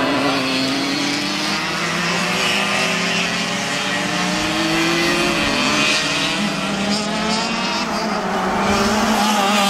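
Racing go-kart engines at high revs as the karts run nose to tail, their pitch climbing steadily for about five seconds under acceleration, then dropping as they back off for a corner.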